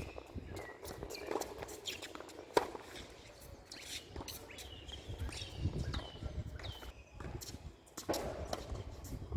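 Footsteps and shoe squeaks on a tennis court, with short falling squeaks, scattered knocks and one sharp knock about two and a half seconds in.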